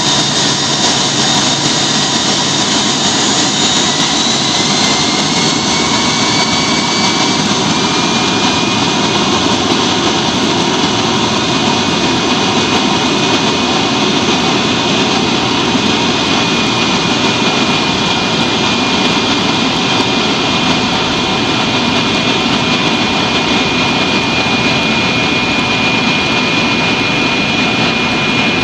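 Yak-42D's rear-mounted Lotarev D-36 turbofan engines heard from inside the passenger cabin during the takeoff roll: a loud, steady rush of jet noise with an engine whine that rises in pitch around four to seven seconds in, then holds high and steady.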